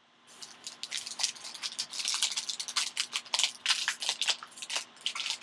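Foil trading-card pack wrapper crinkling as it is pulled open by hand: a rapid, uneven stream of sharp crackles, starting about a third of a second in.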